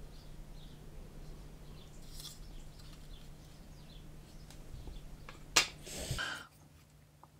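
Faint clicks and rustles of a plastic model kit part being handled, with one sharp click a little over halfway through followed by a brief rustle, over a steady low hum.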